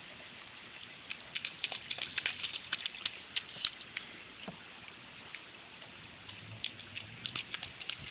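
Small bare feet splashing through shallow rainwater on a concrete sidewalk: irregular quick splats in two runs, the first from about a second in and the second near the end, over a faint steady hiss of light rain.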